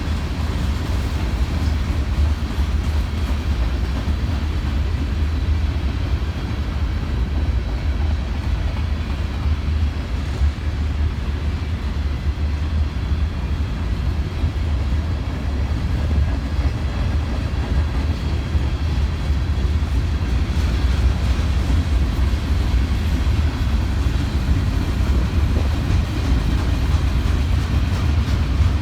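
Freight cars of a long mixed freight train rolling past, a steady, loud rumble with no break.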